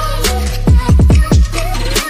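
Electronic background music with a steady beat of deep, falling kick drums and heavy bass under synth tones.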